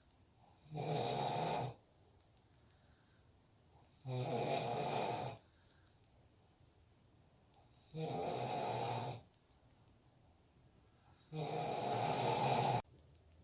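A man snoring: four snores, each about a second long, one every three to four seconds, with quiet between them. The last snore is a little longer and louder.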